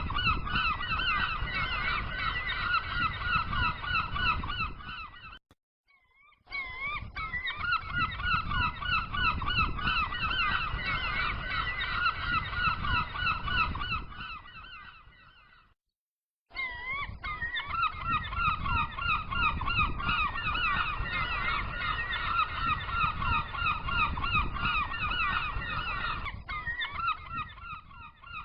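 Birds calling in a fast run of short repeated notes, three or four a second. The calls come in three stretches, each cut off abruptly by a brief silence.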